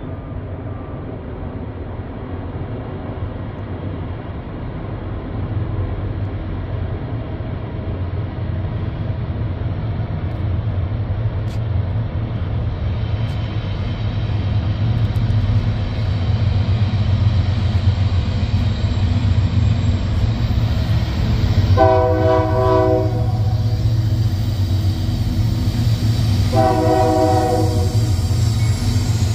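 Union Pacific diesel freight locomotives approaching, their low engine rumble growing steadily louder. The locomotive's multi-tone air horn sounds two blasts of about a second and a half each, the first about two-thirds of the way through and the second near the end.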